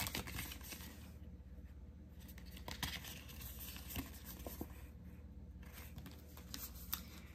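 Faint rustling and crinkling of a folded paper perfume sample card being handled, with a few light clicks.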